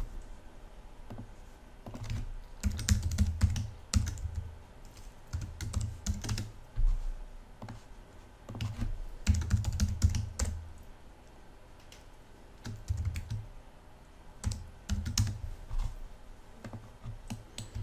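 Typing on a computer keyboard, in several short bursts of keystrokes separated by pauses.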